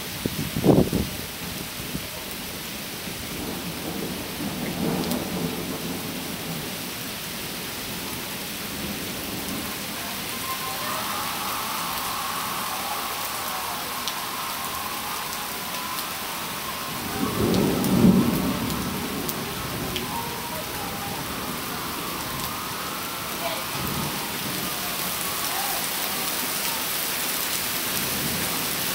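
Thunderstorm: steady rain falling, with thunder. A sharp clap about a second in, a low rumble around five seconds, and a louder rumble building and fading about eighteen seconds in.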